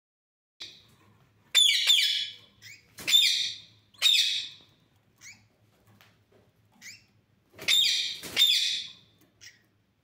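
Caged aviary birds giving about six short, raspy calls, four close together in the first half and a pair near the end, with a few faint chirps between them.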